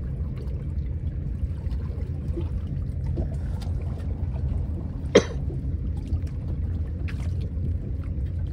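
Steady low rumble of wind and water lapping against a small boat's hull at sea, with faint scattered ticks and one sharp click about five seconds in.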